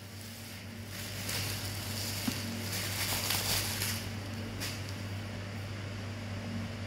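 Rustling and crinkling as packaging is handled during unboxing, loudest between about one and four seconds in, with a single small click partway through, over a steady low electrical hum.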